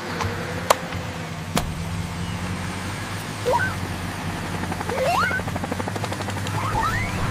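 Cartoon helicopter's rotor whirring steadily over a hiss. There are two sharp clicks near the start, then three short rising whistles in the second half.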